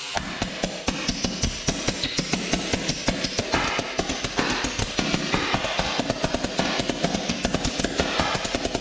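Homemade 1 1/4-inch pulse detonation engine firing: a rapid, uneven string of sharp bangs, several a second.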